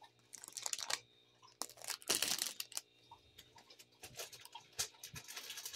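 Clear plastic bag crinkling and rustling on and off as it is handled.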